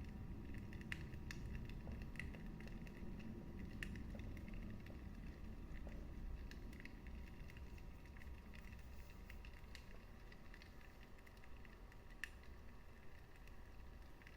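Wood fire burning in a fireplace: a low steady rumble of the flames with sporadic sharp crackles and pops of the burning wood. The crackles come more often in the first few seconds, with one sharper pop near the end.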